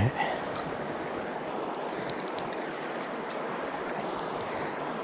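River water rushing steadily over rocks, an even hiss with a few faint ticks.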